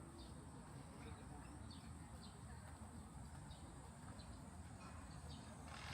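Faint outdoor garden ambience: scattered short bird chirps over a steady high-pitched insect drone and a low background rumble.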